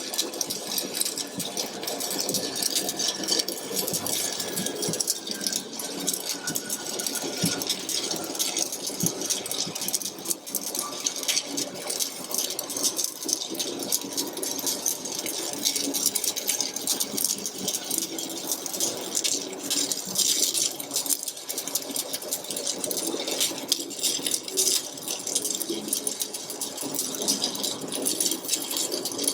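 Electric arc welding: the arc crackling and sputtering steadily as a weld run is laid.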